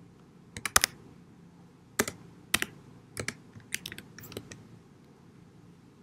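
Computer keyboard typing: scattered keystroke clicks, some single and some in quick runs, stopping about four and a half seconds in.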